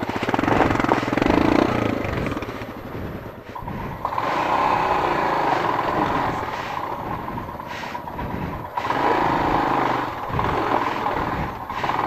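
Single-cylinder motorcycle engine running at low speed over a rough dirt trail, its note settling into a steadier, higher drone about four seconds in.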